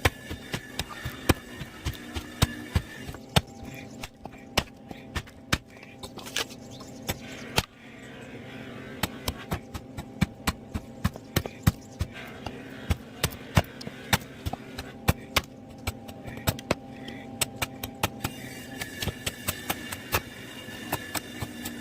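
Woodworking tools striking and cutting wood: a string of sharp knocks and taps, irregular and a few a second, over a steady hum.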